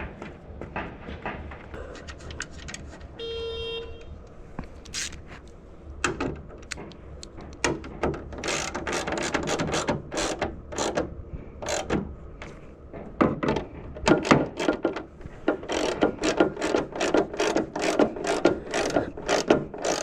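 Hand socket ratchet clicking in quick strokes as a bed stiffener is fastened down, growing faster and louder in the second half. A short electronic beep sounds about three seconds in.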